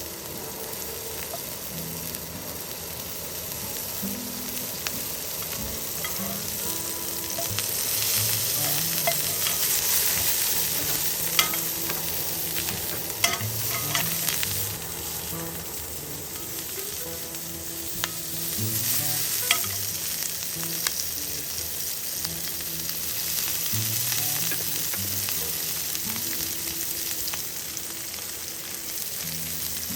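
Food sizzling and frying in a pan while it is stirred, the sizzle swelling and easing off in waves. A utensil clicks sharply against the pan a few times.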